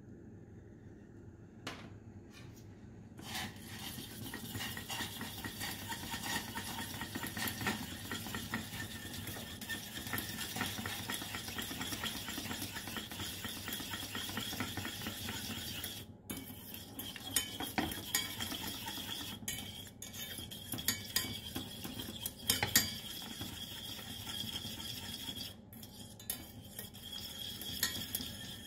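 Small wire whisk beating fast in a stainless steel saucepan, its wires rattling and scraping against the metal pan as agar powder is whisked into heating lemon juice. It starts about three seconds in and pauses briefly twice.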